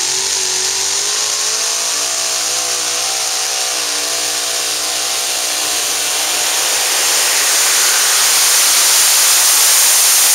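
Super modified two-wheel-drive pulling truck's engine at full throttle, dragging the weight sled down the track. Its pitch climbs a little at the start and then holds, and it gets louder about two-thirds of the way through.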